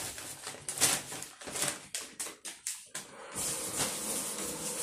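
A white takeout bag rustling and crinkling as it is handled and opened: a quick string of crackles over the first couple of seconds, then a steadier rustle near the end.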